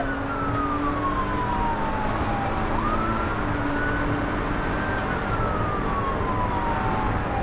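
Police car siren on a slow wail, its pitch sliding down for a few seconds, sweeping quickly back up about three seconds in, then sliding down again, over steady road and engine noise from the moving cruiser.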